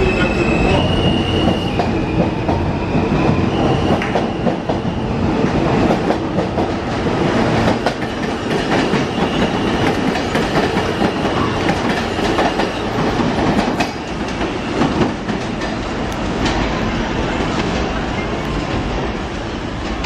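R160 subway train pulling out of the station. Its electric motors whine in stepped tones during the first few seconds, then the cars rumble past with wheels clacking over rail joints.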